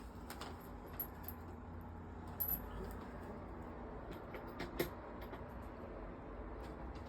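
Scattered light clicks and metallic clinks of small metal pieces, the sharpest about two and a half and nearly five seconds in, over a low steady hum.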